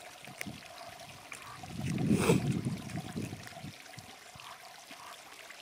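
Plastic MRE food pouch being handled and rustled, with a louder stretch of crinkling about two seconds in and a few faint clicks.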